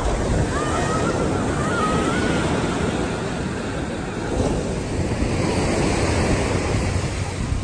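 Steady rush of ocean surf breaking on a beach, with wind on the microphone.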